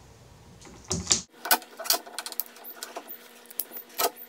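Orange duct tape being pulled off the roll in short, crackling rips and pressed around the corner of melamine form boards, with a sharp scissor snip cutting the tape near the end.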